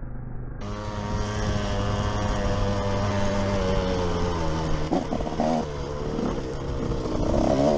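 2006 KTM 105 SX two-stroke dirt bike engine running under the rider, holding a steady pitch. About four seconds in the pitch sags slightly, then wavers as the throttle changes.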